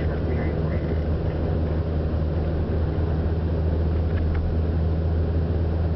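Steady low drone of a car driving, heard from inside the cabin: engine and road noise at an even speed.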